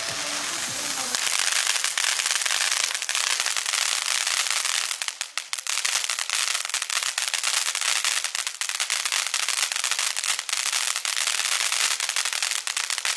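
SP22502 'Snowflake Silver Willow' ground fountain firework burning: a steady hiss of spraying sparks shot through with dense crackling, growing louder about a second and a half in and dipping briefly around five seconds. It dies away at the very end as the fountain burns out.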